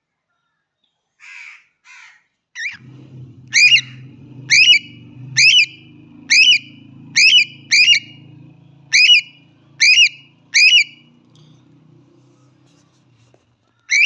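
Whiteface cockatiel calling. Two faint calls are followed by a run of about nine loud, short, shrill calls, roughly one a second, and one more near the end.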